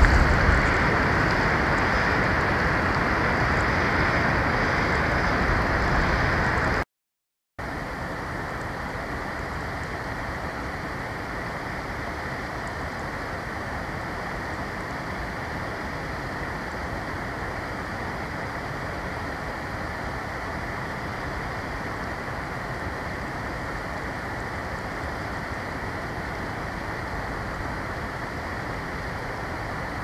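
Steady, even wind noise from a snowstorm on an outdoor nest-camera microphone, with no bird calls. It drops out briefly about seven seconds in and comes back a little quieter.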